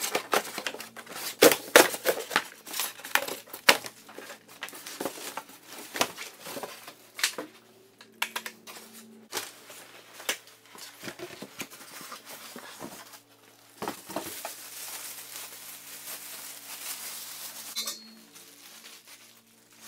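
Table saw being unpacked from its shipping box: packaging crinkling and tearing, with quick knocks and rattles of parts being handled, then a few seconds of steady rustling that stops shortly before the end.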